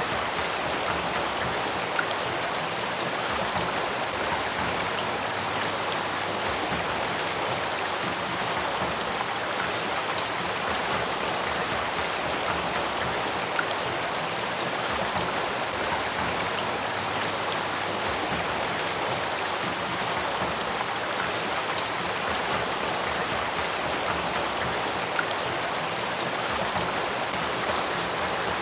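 Headwaters stream of the Sacramento River flowing: a steady, even rush of running water with a few tiny ticks from splashing.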